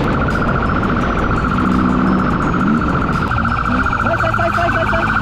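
Motorcycle engine running under throttle, its pitch rising and falling, with a police siren sounding a steady, fast-warbling tone that comes on sharply at the start.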